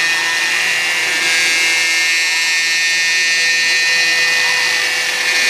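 CNC milling machine cutting a plastic part: a steady high-pitched spindle whine, with faint tones that rise and fall again and again as the axis motors speed up and slow down.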